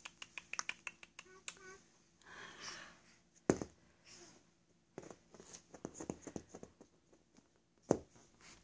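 Light clicks and taps in quick succession for the first second and a half, then scattered ones, with two louder knocks about three and a half and eight seconds in.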